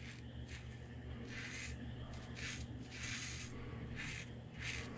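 Injector safety razor scraping through two days of stubble and lather on the neck during a with-the-grain pass, in a series of faint, short, irregular strokes.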